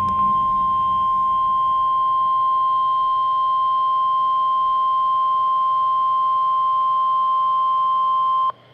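NOAA Weather Radio 1050 Hz warning alarm tone, a single steady, loud tone sounded as a test of the warning alarm. It cuts off abruptly near the end, leaving faint hiss.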